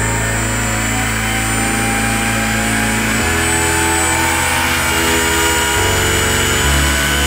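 Turnigy G-46 brushless outrunner motor spinning a 12x10 propeller on a thrust stand under load, its whine slowly rising in pitch as the throttle is raised, over the steady rush of the prop wash.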